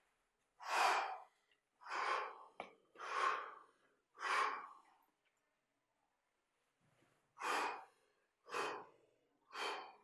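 A man's forceful, effortful breaths while doing push-ups and squats: seven short, sharp exhalations about a second apart, with a pause of a couple of seconds after the fourth.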